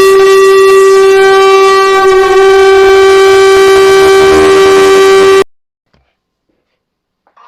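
Emergency alert alarm tone: one loud, harsh, buzzy tone held at a steady pitch that cuts off suddenly about five and a half seconds in, leaving silence. Just before the end a much quieter siren starts rising.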